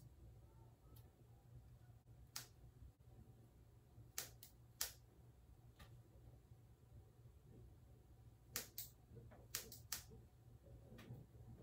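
Scissor blades snipping through wet hair: faint, sharp snips, a few spaced out and then a quick run of several near the end.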